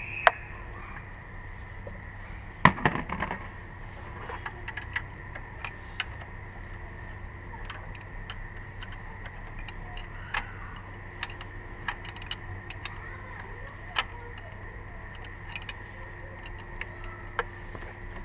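Hand tools working on engine parts: scattered sharp metallic clicks and clinks of a screwdriver against fasteners and covers in the engine bay, with a louder cluster of knocks about three seconds in, over a steady low hum.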